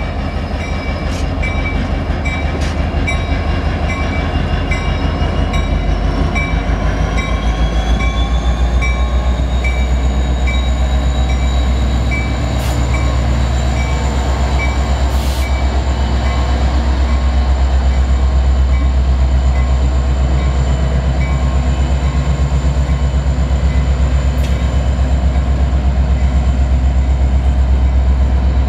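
EMD SD70 diesel locomotive passing close by, its 16-cylinder two-stroke engine running with a deep steady rumble as it pulls a long freight train out of the yard. A high whine rises in pitch about eight seconds in. A light ringing repeats about twice a second and fades out after some twenty seconds.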